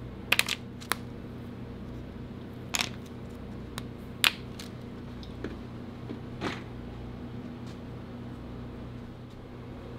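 Tempered dark chocolate bars snapped apart by hand: a handful of short, sharp snaps, the loudest about four seconds in. A crisp snap is the sign of well-tempered chocolate. A steady low hum runs underneath.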